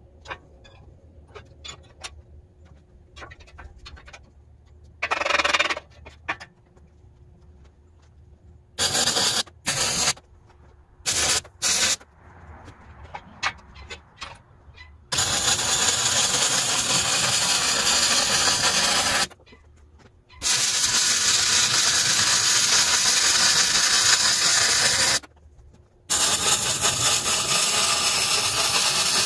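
Gas-shielded MIG welder arc welding steel: a few short bursts of crackling arc early on, then three long runs of steady arc crackle, several seconds each, with brief pauses between them.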